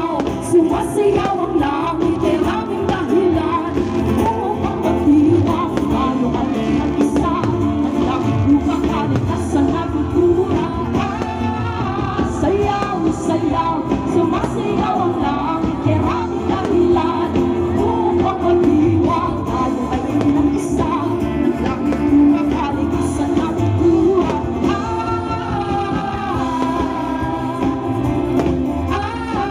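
Music with a singing voice and a steady backing band.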